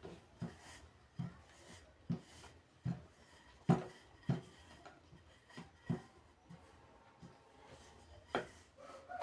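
A series of short, soft knocks on a wooden board, roughly one every second, from cutting mandazi dough into small pieces with a knife.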